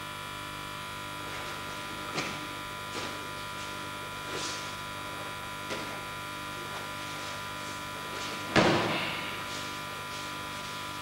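A body falling onto the mat as an aikido partner is thrown: one loud thud-and-slap about eight and a half seconds in, after a few lighter knocks of feet on the mat, over a steady electrical hum.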